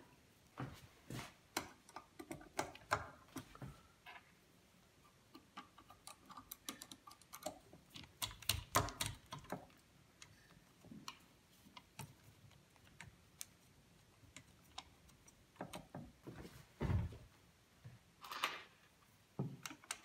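Scattered light clicks and ticks of long screws and plastic fan frames being handled and fitted onto a Deepcool Captain 360X AIO cooler's radiator, with a few louder knocks and a brief rustle near the end.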